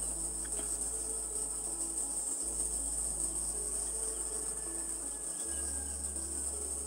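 Steady high-pitched chirring of an insect chorus, unbroken throughout, with a faint low hum beneath.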